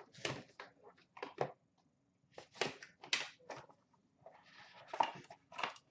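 Cardboard trading-card box handled and opened by hand, its contents pulled out: a run of short, irregular scrapes and rustles of cardboard and wrapper.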